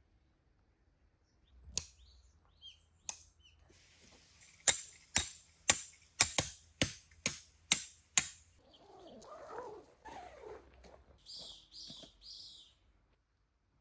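A run of about nine sharp knocks, a little under half a second apart, like something being struck with a hammer or hatchet, followed by softer rustling and a few short high chirps.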